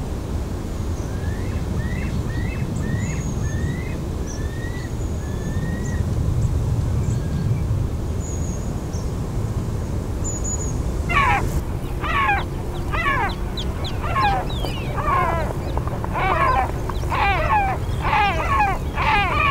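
White-tailed eagle calling: a long series of yelping notes that begins about eleven seconds in and comes faster and louder toward the end. Before it, faint high chirps of small birds sound over a steady low background rumble.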